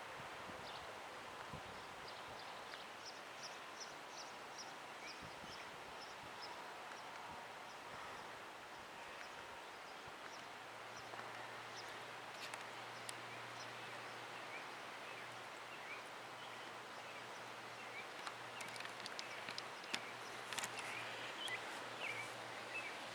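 Quiet outdoor ambience with birds chirping: a run of short high chirps, about three a second, a few seconds in, and scattered calls later. A faint low steady hum comes in about halfway.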